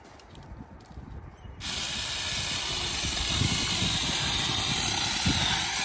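Saker 4-inch cordless electric mini chainsaw starting suddenly about a second and a half in and running steadily as its chain cuts through a thin pine trunk at ground level.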